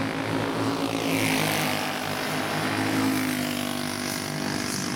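A pack of four-stroke racing karts with Briggs & Stratton Animal engines running at speed, several engine notes overlapping and shifting in pitch as the karts pass.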